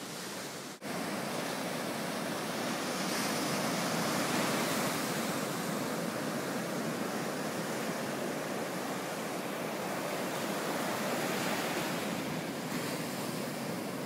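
Ocean surf breaking and washing up onto a sandy beach: a steady rushing hiss of waves, with a momentary drop-out about a second in.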